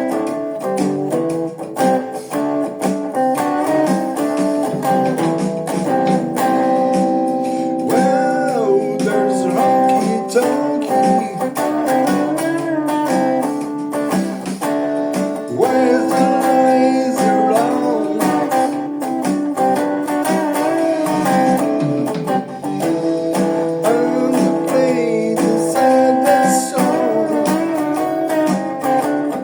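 Guitar music: plucked and strummed guitar playing steadily, with notes that bend in pitch a few times.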